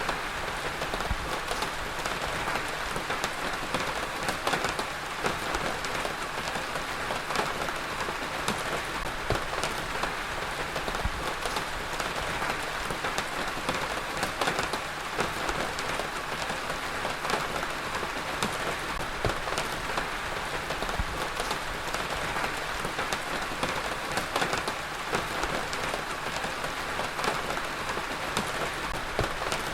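Heavy rain falling steadily on a hard surface, a dense hiss dotted with many sharp individual drop impacts.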